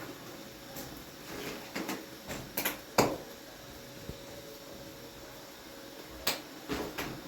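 A few sharp knocks and clacks of objects being handled, the loudest about three seconds in and a quick cluster near the end, over a faint steady hum.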